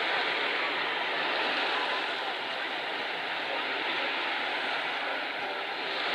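Gentle sea surf washing steadily onto a beach.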